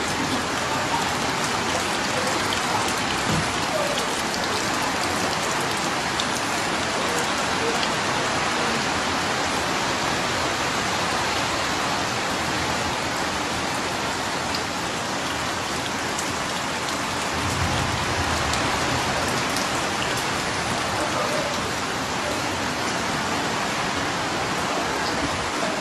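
Steady rain drumming on a ward's leaking roofing sheets, a dense even hiss with scattered drips. A brief low rumble comes about two-thirds of the way through.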